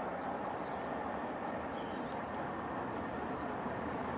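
LNER A4 Pacific steam locomotive 60009 'Union of South Africa' approaching with its train, heard at a distance as a steady, even rumble with no distinct exhaust beats.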